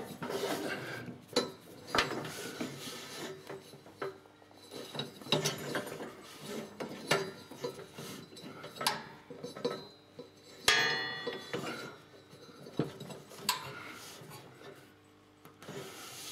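Hands working a rubber V-belt around the pulleys under a ride-on mower's cutting deck: scattered rubs, knocks and light metallic clinks. About ten seconds in, a louder metallic clink rings briefly.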